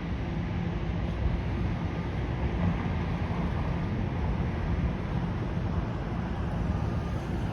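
Steady low vehicle rumble with no distinct events, its level even throughout.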